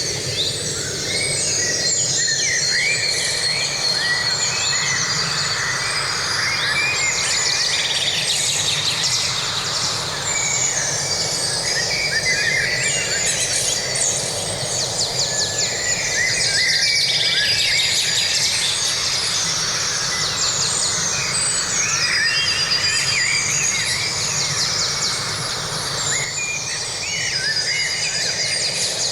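Forest ambience: many birds singing and chirping at once in a dense, overlapping chorus of short whistles and trills, over a steady low background rush.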